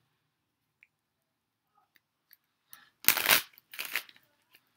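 A deck of tarot cards being shuffled by hand: a few faint card ticks, then two loud, short riffling bursts about three and four seconds in.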